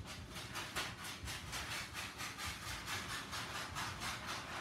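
Rhythmic sawing, a rasping stroke about four times a second, steady throughout.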